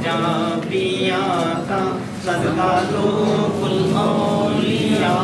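Male voices chanting a devotional Islamic recitation of the durood and salam kind, sung in long, held melodic lines with a short break about two seconds in.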